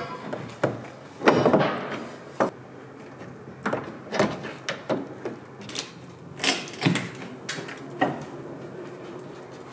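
Irregular knocks and clunks of hand tools and a Land Rover Series 3 windscreen frame being worked loose and handled, the loudest a little over a second in.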